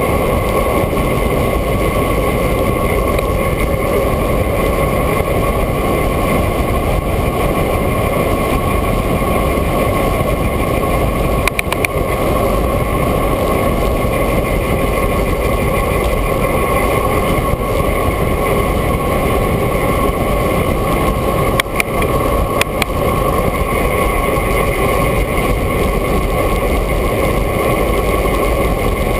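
Steady rush of wind and road noise on a handlebar-mounted camera on a moving bicycle, with a few short knocks from road bumps about 12 and 22 seconds in.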